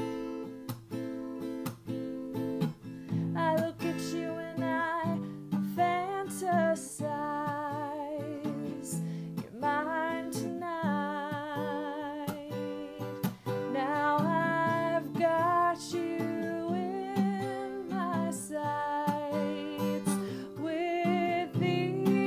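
A woman singing a slow ballad to her own strummed acoustic guitar, holding some notes with vibrato.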